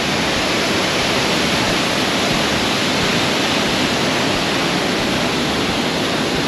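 Kadiyanlena Falls and the rapids below it: a steady, loud rush of falling water pouring over rock.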